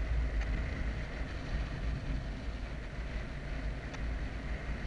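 Airflow buffeting the microphone of a camera on a paraglider in flight: a steady low rumble that rises and falls with the gusts.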